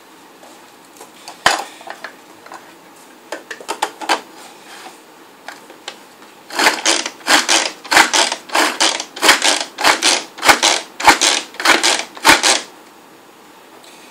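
Hand-operated plastic food chopper worked in rapid strokes, about three a second for some six seconds, each stroke a clattering chop of the blades through onion pieces. Before that, a few knocks and clicks as the pieces go in and the lid is fitted.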